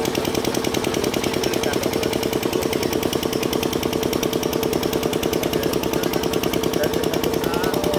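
Engine running steadily with a rapid, even beat of about a dozen pulses a second.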